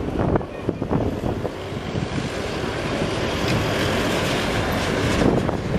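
Lockheed C-130H Hercules's four Allison T56 turboprop engines running at takeoff power, a loud, steady drone as the aircraft rolls down the runway and lifts off.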